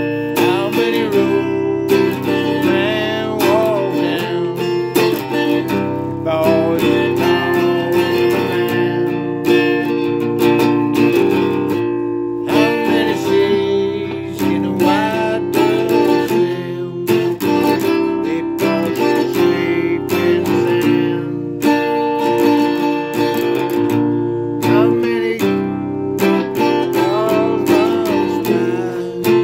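Acoustic guitar being strummed, playing chords.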